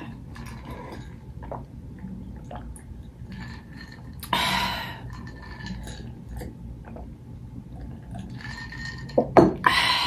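Close-miked gulping and swallowing of an iced drink from a glass, with small mouth and liquid sounds and ice clinking. About four seconds in there is a louder mouth sound, and near the end a few sharp knocks as the glass is set down on the table.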